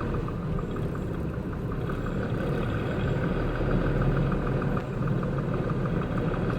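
Concrete mixer truck's diesel engine running slowly at near idle, a steady low rumble with a fast, even clatter over it, while the truck creeps along behind cattle.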